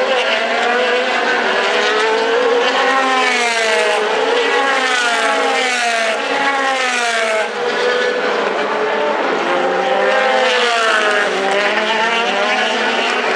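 DTM race cars' naturally aspirated V8 engines at racing speed, several at once, their pitch rising and falling as they accelerate, brake and shift through the gears. About halfway through the pitch drops sharply and briefly, then climbs again.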